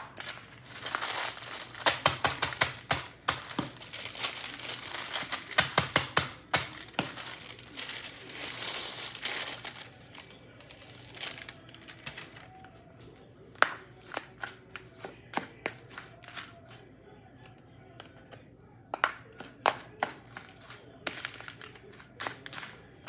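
Spoon stirring and scraping through a cracker salad of crushed Ritz crackers and mayonnaise in a plastic bowl, making crackly crinkling clicks. The clicking is dense for the first ten seconds or so, then thins out to separate taps and scrapes.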